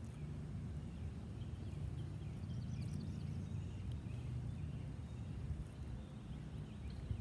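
Outdoor background noise: a steady low rumble, with a few faint high chirps about two and a half to three seconds in.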